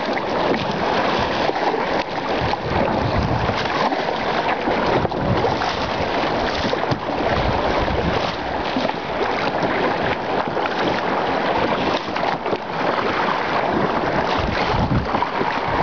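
Wind buffeting the microphone over choppy sea water sloshing and splashing around kayaks, a steady rough noise with gusty low rumbles.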